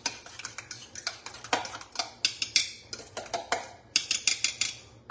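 Spoon stirring a thick ricotta, egg and parmesan mix in a stainless steel mixing bowl, scraping and clinking against the metal in quick, irregular strokes.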